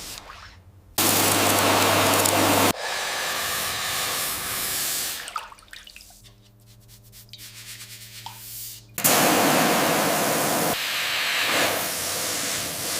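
A spray hissing in bursts that start and cut off abruptly: a loud one about a second in and another about nine seconds in, with softer hissing between. In the middle stretch a quieter steady hum with a few level tones runs underneath.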